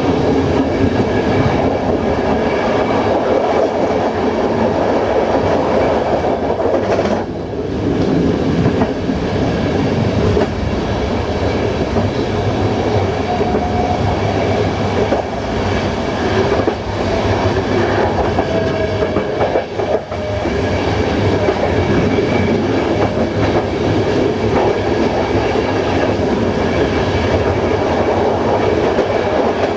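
Passenger train running along the line, heard from its rear cab: a steady rumble of wheels on rails with clickety-clack over the track.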